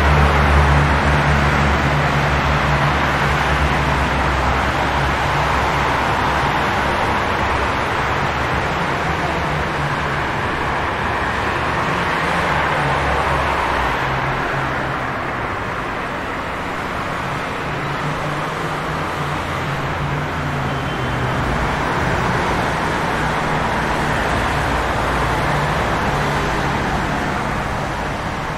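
City street traffic in the rain: a steady hiss of rain and tyres on wet pavement, with the low drone of passing vehicles strongest in the first few seconds.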